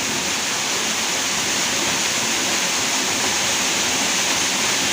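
Steady rushing of flowing river water, an even loud hiss with no breaks.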